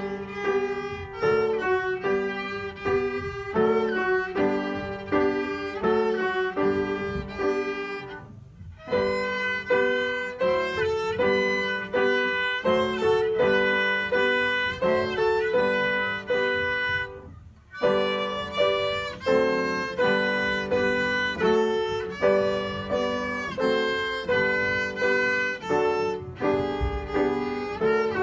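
A young student playing violin with piano accompaniment: a melody of short, evenly paced notes, broken by two brief pauses, about a third and two-thirds of the way in.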